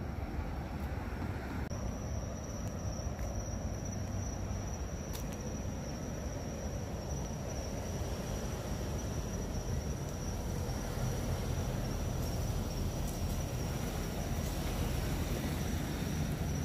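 Outdoor night ambience: a steady low rumble, with a thin, steady high insect trill joining about two seconds in.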